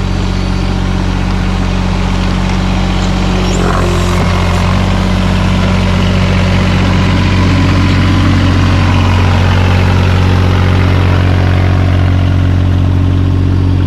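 Takeuchi TB216 mini excavator's diesel engine running steadily, its note shifting slightly about four seconds in.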